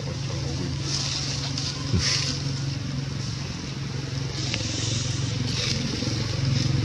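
A small engine running steadily, a low even hum, with a few brief rustling hisses over it.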